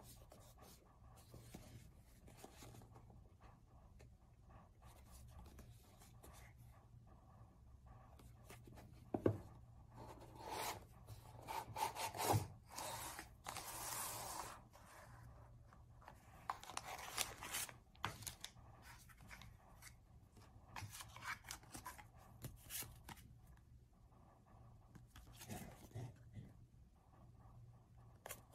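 Paper and cardboard packaging handled by hand: a cardboard box is opened and set down with a couple of sharp knocks, tissue paper rustles, and printed cards are shuffled. The rustling comes and goes, densest in the middle.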